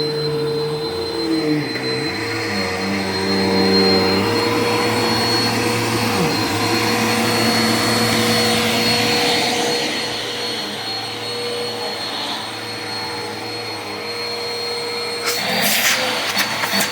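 Vacuum cleaner running steadily with a high-pitched whine over its motor hum. Near the end a fast rattle of clicks comes in on top of it.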